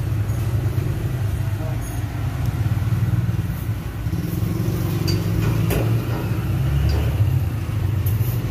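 A vehicle engine idling with a steady low rumble, with a couple of sharp knocks about five and a half and seven seconds in.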